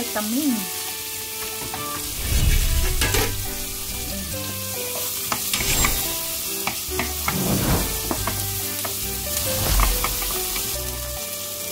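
Chopped onions sizzling as they fry in a pan. A wooden spatula stirs them, scraping and knocking against the pan now and then.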